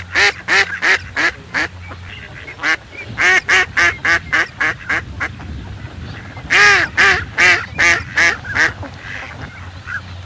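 Waterfowl calling in quick runs of loud repeated calls, about three a second, three runs with short pauses between them, over a steady low hum.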